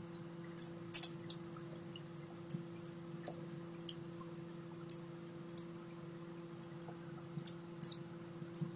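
A person eating salmon paksiw with his fingers: scattered short, wet lip smacks and clicks of chewing. A faint, steady low hum runs underneath.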